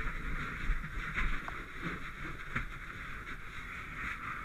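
Fire hose nozzle flowing water: a steady hiss, with low knocks and rumble of gear handling underneath.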